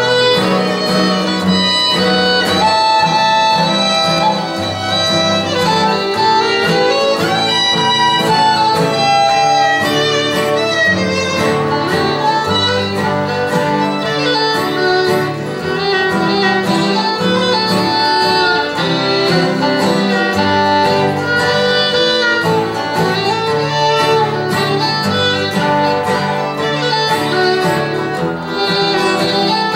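A fiddle playing a melody, backed by three acoustic guitars strumming chords.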